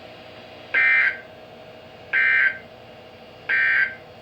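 Emergency Alert System end-of-message signal: three short bursts of buzzy SAME digital data tones, about a second and a half apart, over a faint steady hum. These bursts mark the end of the alert message.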